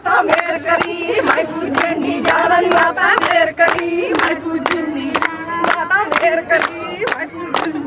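Group of women singing a Punjabi boli in chorus for gidha, over a steady beat of hand-clapping at about three claps a second.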